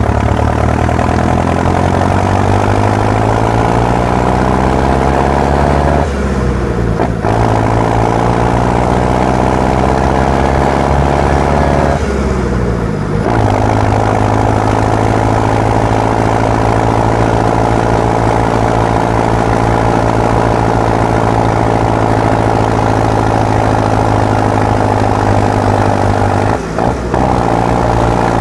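Marshall 904XL tractor's diesel engine working under a heavy load of river gravel: the engine pitch climbs, drops off about six seconds in and climbs again, drops off once more around twelve seconds in, as it goes up through the gears. It then runs steadily, with a brief dip near the end.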